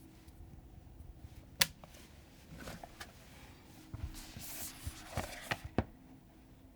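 Unboxing handling sounds: scattered sharp clicks and taps of plastic packaging and accessories being handled, with a short rustle about four seconds in.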